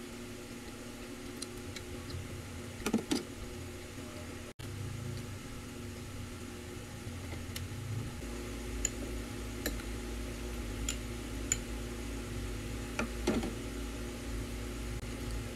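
Steady hum of an electric fan running, with scattered soft clicks from the spoon, skewers and eating. A low rumble joins about halfway through.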